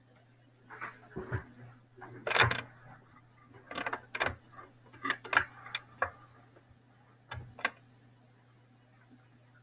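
Irregular clicks and light knocks from equipment being handled, over a steady low hum.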